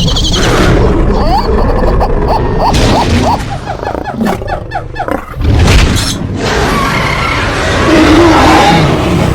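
Loud, layered sound effects: crashing and booming noise, with a run of quick rising calls about a second and a half in.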